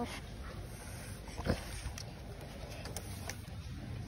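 The end of a wet kitten's meow right at the start, then a low steady background rumble with a single sharp click about a second and a half in.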